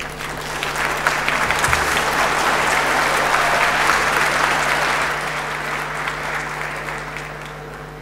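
A large audience applauding: the clapping builds over the first few seconds, holds, then dies away toward the end.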